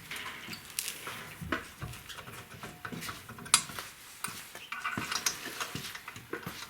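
Irregular light metallic clicks and clinks of tools on the rear brake caliper as its guide bolts are screwed in, with one sharper click about three and a half seconds in.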